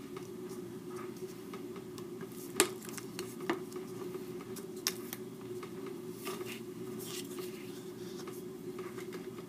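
Craft knife cutting slits in paper on a cutting mat: three sharp clicks, the first and loudest a little over two seconds in, and soft scraping and rustling of the paper being handled later on, over a steady low hum.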